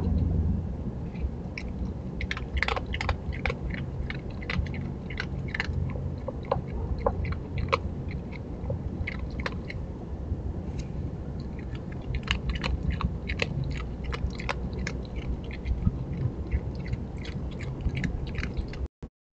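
Virginia opossum chewing dry kibble from a dish, an irregular run of sharp crunching clicks throughout, over a steady low background noise.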